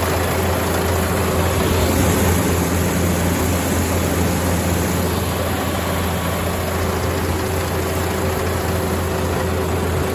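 Iseki HF680 combine harvester running steadily while cutting rice: a constant engine and machinery drone with a low hum and a few steady tones over it.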